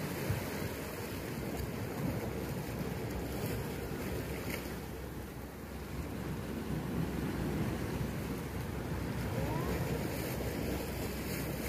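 Steady wash of sea waves against a rocky shore, with wind buffeting the microphone.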